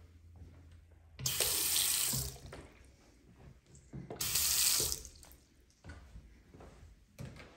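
Water from a bathroom sink faucet, turned on and run briefly twice, each time for about a second, splashing into the basin. A few light knocks fall around the runs.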